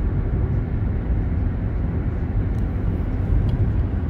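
Inside a moving car's cabin: a steady low rumble of engine and tyres on an asphalt road.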